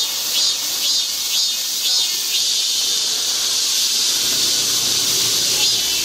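Cicadas singing in a loud, high, hissing chorus. A pulsing call repeats about twice a second over the first two seconds, then the sound settles into a continuous drone, with the pulsing coming back near the end.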